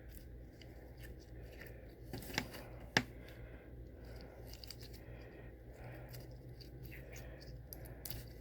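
Slime being handled and stretched, with faint scattered clicks and crackles and two sharper clicks about two and three seconds in.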